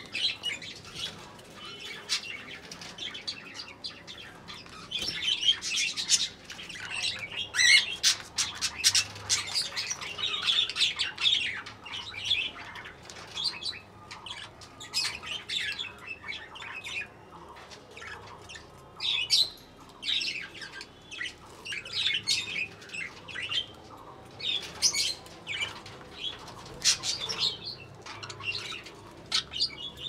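Pet budgerigars chirping and chattering with quick high calls, mixed with short bursts of wing flapping.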